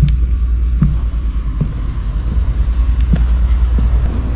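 Footsteps at a steady walking pace, about one step every three quarters of a second, over a constant low rumble of wind or handling noise on the microphone.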